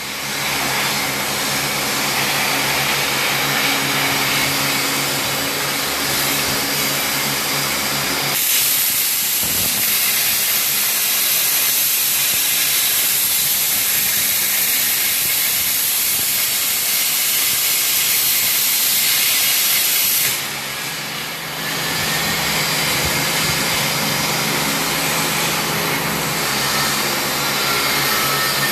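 CNC machine running: a loud, steady hiss with a low hum underneath. The hum drops out about eight seconds in and comes back about twenty seconds in.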